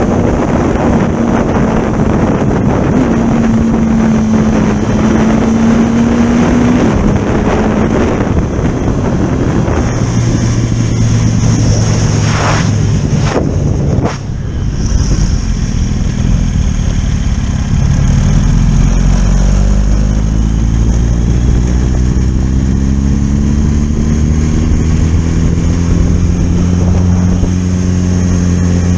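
Motorcycle engine running under way, with wind buffeting the microphone. The engine note drops lower about a third of the way in, then climbs steadily over the last third as the bike accelerates.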